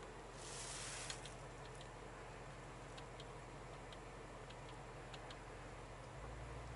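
Faint, irregular clicks from the centre-console touchpad and controls being pressed, over a low steady hum in the cabin of a Mercedes-AMG G63. A brief hiss ends in a sharper click about a second in, and the hum grows slightly louder near the end.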